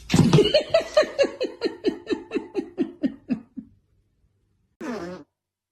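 A person laughing in a long run of quick high-pitched bursts, about four or five a second, each falling in pitch, fading out after about three and a half seconds. A short voiced sound follows near the end.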